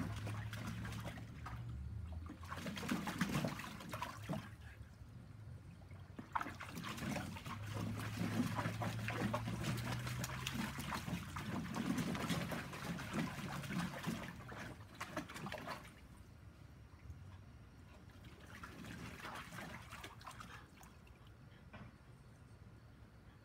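A French bulldog moving about in a shallow plastic kiddie pool, the water splashing and sloshing in bouts with many small splashes. It grows quieter about two-thirds of the way through, with one more short bout near the end.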